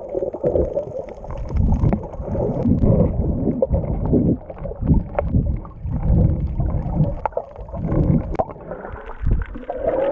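Muffled underwater water noise picked up by a GoPro camera: irregular low rumbling and gurgling surges with a few faint clicks.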